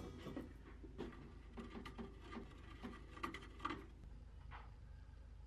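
Faint pencil scratching and light scattered ticks as hole positions are traced through a bow thruster motor bracket onto the fibreglass tunnel.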